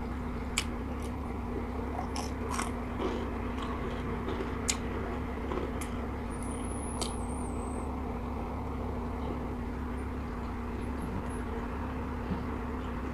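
Close-miked eating sounds: a person chewing fried chicken wing and rice eaten by hand, with sharp mouth clicks and lip smacks, most of them in the first half. A steady low hum runs underneath.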